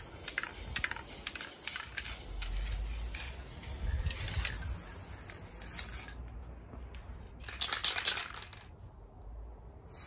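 Aerosol spray-paint can being shaken, the mixing ball inside rattling in a run of quick clicks, loudest in a burst about 8 seconds in.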